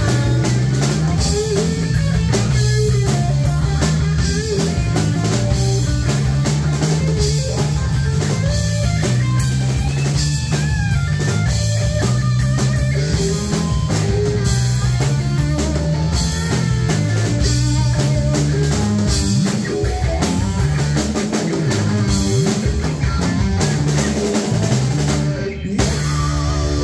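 Live rock band playing an instrumental passage: electric guitar, electric bass and a Tama drum kit, with a steady bass line under dense drumming. The sound drops out for a moment near the end.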